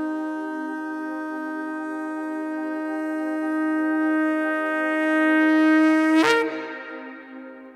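A shofar sounding one long, steady blast that grows louder for about six seconds. It ends with a sharp upward break in pitch, then cuts off and fades away in an echo.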